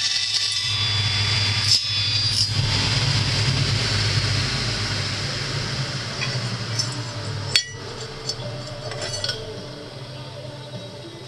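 Circular saw winding down after cutting aluminium profile, its whine fading away over several seconds. There are a few sharp metallic clinks, the loudest about seven and a half seconds in.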